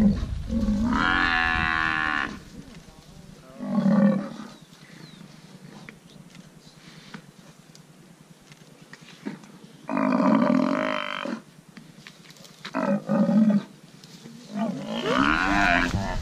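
Cape buffalo bellowing in distress, about five loud, drawn-out calls with pauses between them, the cries of a buffalo pinned down by lions.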